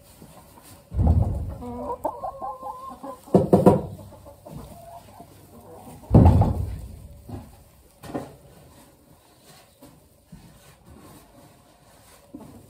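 Brown hens clucking close by, with three loud bumps near the microphone: about a second in, at about three and a half seconds, and at about six seconds.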